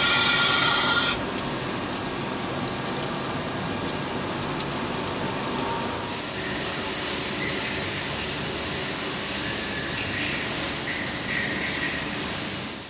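Star SR-32 sliding-head CNC lathe running with flood coolant gushing over the work, heard as a steady hiss. In the first second a loud, shrill squeal with several high tones sounds as the tool cuts, then stops.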